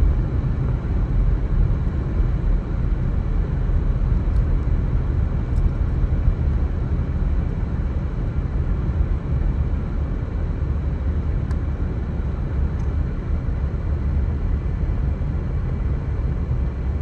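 Steady, loud low rumble of outdoor background noise, with no distinct events standing out.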